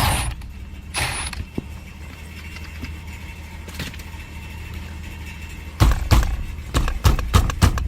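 Parts of a car's steering wheel being worked loose by hand: a couple of brief scrapes with a short squeak early on, then near the end a run of quick, loud, irregular knocks and rattles as the part is yanked back and forth.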